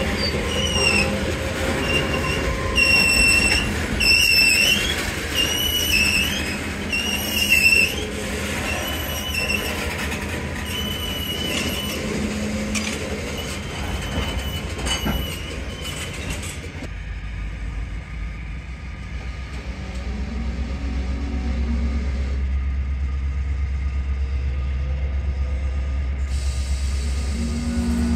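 A slow-rolling freight train: steel wheels squeal against the rail about once a second, over the rumble of rolling cars. Past the middle the squealing stops and the low, steady rumble of the GP40-2 diesel locomotive's engine takes over, growing louder near the end.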